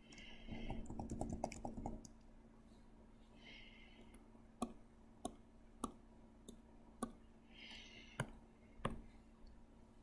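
Computer mouse clicking: a quick rattle of clicks in the first two seconds, then sharp single clicks about half a second to a second apart.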